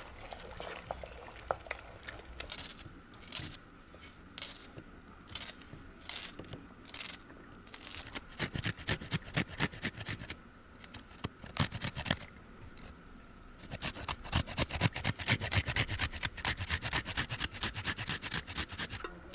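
Rapid scraping of food being rubbed across a metal box grater, several strokes a second, in two long runs with a short break between. Slower single scrapes come before them.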